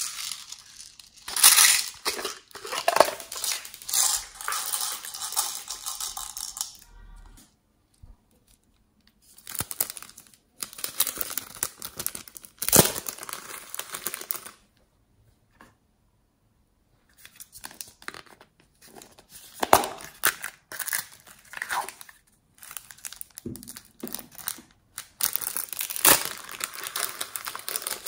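Crinkling and rustling of a small plastic bag being handled. The rustling comes in four spells separated by short pauses.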